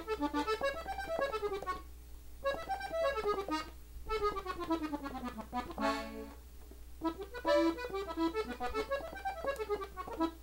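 Gabbanelli button accordion tuned in E playing quick runs of single notes on the treble buttons: a chromatic-scale ornament, demonstrated slowly. There are three short phrases. The middle one is a long descending run ending in a brief chord.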